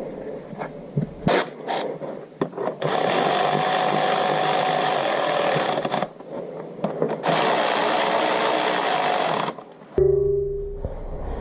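A power tool runs in two bursts of a few seconds each, after a few sharp clicks. The sound changes abruptly near the end to a low rumble.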